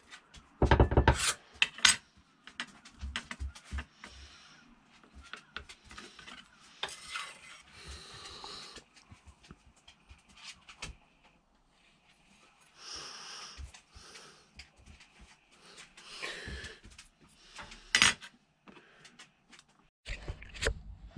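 Tempered steel knife blanks clicking, clinking and scraping against a steel bench vise while slight warps are bent out of them. The sharpest clicks come about a second in and again near the end, with short rubbing scrapes between, then a few dull thumps in the last second.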